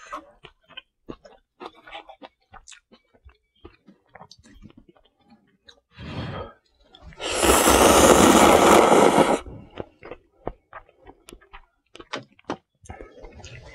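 Ramen noodles slurped loudly for about two seconds, midway through. Around it come soft chewing and the small clicks of metal chopsticks against bowls and plates.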